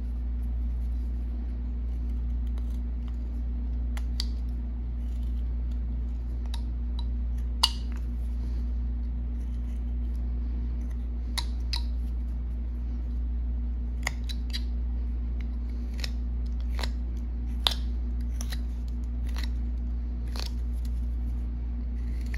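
Carving knife slicing small chips off a hand-held wood carving: irregular crisp snicks, about one every second or two, a couple of them sharper. A steady low hum runs underneath.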